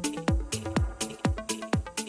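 Electronic house-style background music with a steady kick drum, about two beats a second, over bass and chord notes.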